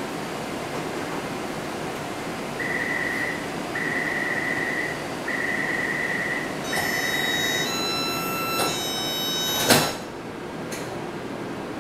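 Taipei Metro C381 train's door-closing warning: four beeps at one pitch, about a second apart, over the steady ventilation hum. Then a few steady tones sound as the sliding doors close, and the doors shut with a sharp thud near the end.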